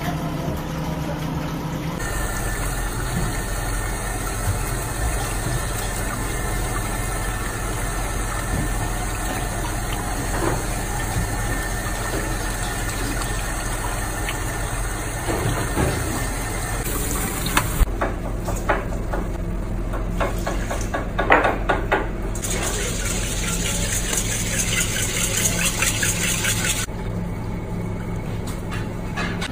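Water running from a tap and splashing, over a steady mechanical hum, with a few clatters and knocks near the middle.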